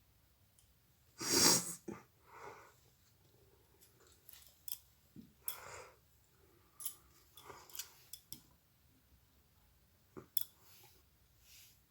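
A woman forcefully blowing her nose: one loud blow about a second in, then shorter, quieter nasal blows and sniffs scattered through the rest.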